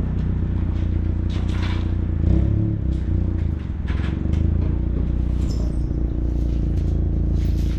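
A vehicle engine running with a steady low drone, with scattered clatter and rattles over it.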